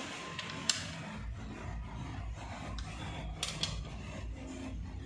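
Metal engine parts and a hand wrench scraping and rubbing against a diesel tractor engine block during hand assembly, with a few sharp metal clicks, one about a second in and two more past the middle.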